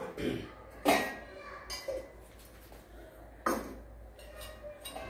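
Brass davara and tumbler cups clinking and knocking as they are handled and set down on a wooden shelf. There is a sharp ringing clink about a second in and another about three and a half seconds in, with lighter knocks between.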